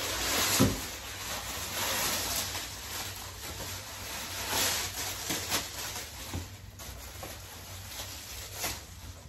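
Plastic wrapping and tissue paper rustling and crinkling as they are pulled off a replica championship belt, busiest in the first half and dying down near the end.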